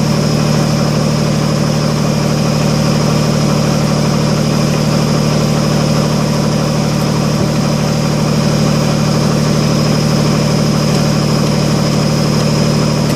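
Kubota BX25D compact tractor's three-cylinder diesel engine running steadily at a constant speed.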